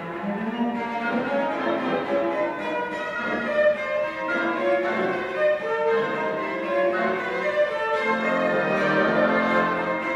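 Symphony orchestra with solo cello, bowed strings sounding many overlapping sustained notes.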